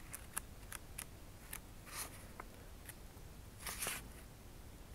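Pages of a hardcover book being leafed through: faint paper ticks and rustles, with slightly louder page turns about two seconds in and again near the end.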